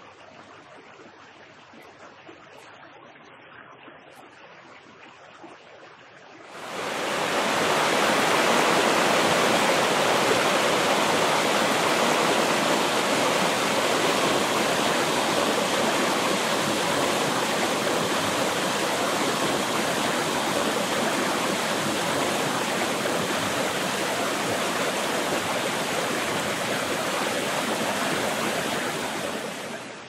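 A shallow, snow-banked creek running over rocks, soft and steady. About six seconds in it switches suddenly to the much louder, steady rush of a waterfall, which drops back to a quieter creek right at the end.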